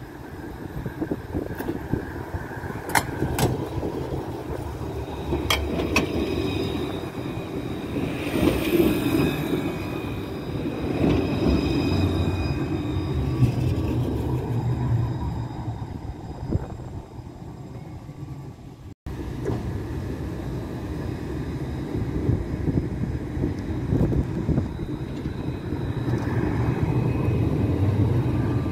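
Tram running on its rails: a continuous low rumble, with a few sharp clicks in the first few seconds and a high thin whine in the middle. The sound breaks off abruptly about two-thirds through and a similar rumble carries on.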